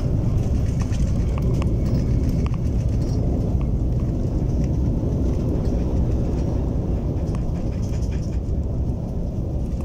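Cabin noise of an airliner on its landing rollout just after touchdown, ground spoilers raised: a steady low rumble of engines, wheels on the runway and airflow that eases slightly near the end as the plane slows.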